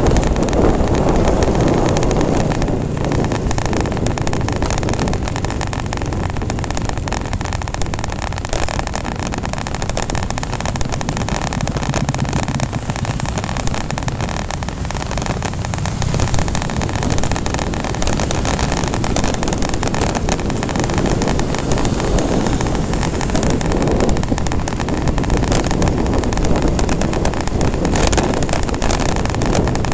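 Wind rushing over the microphone of a phone on a moving Honda Revo Fi single-cylinder underbone motorcycle, with the engine and road noise underneath at steady cruising speed.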